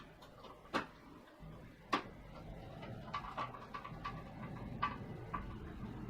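Small screws being set into and driven into the plastic frame of an Amiga 500 keyboard with a screwdriver. Two sharp clicks about one and two seconds in, then lighter clicks and faint ticking.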